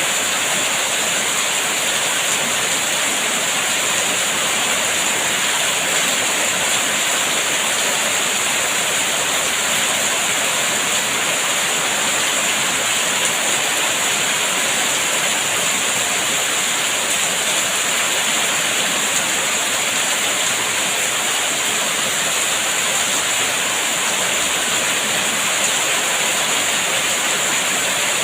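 Heavy rain falling steadily: a dense, even hiss with no single drops or thunder standing out.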